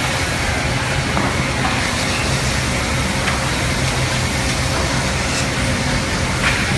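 Multi-blade circular rip saw running: a steady machine noise with a low hum under a broad hiss, and a few faint knocks.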